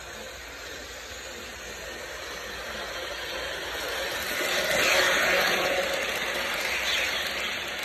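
Bachmann model train running along the track, its running noise growing louder as it approaches, loudest about five seconds in as the cars pass close by, then easing off.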